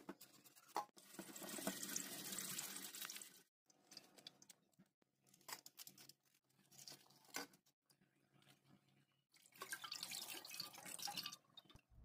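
Quiet water splashing and dripping in a stainless steel sink and bowl as raw milkfish are washed by hand, in two stretches of about two seconds each, with scattered small splashes and clicks between.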